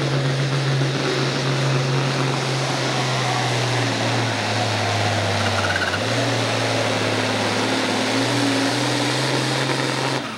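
International Harvester farm-stock tractor's diesel engine running at full power under heavy load while pulling a weight-transfer sled. The engine pitch sags about four seconds in as it lugs down, picks back up around six seconds, and the sound cuts off suddenly near the end.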